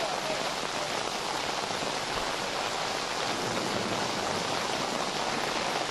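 Steady heavy rain falling, an even, unbroken hiss.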